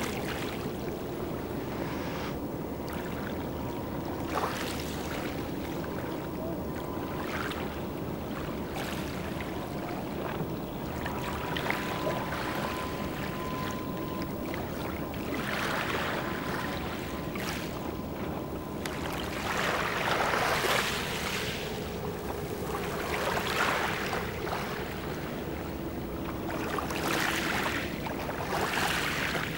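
Wind and lake water lapping, rising and falling in swells every few seconds, under a faint steady engine drone from across the water.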